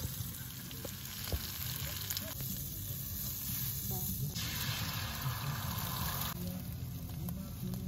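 Food sizzling in a frying pan on a portable gas stove: ham slices, then beaten egg. The frying is a steady hiss that grows louder for about two seconds midway.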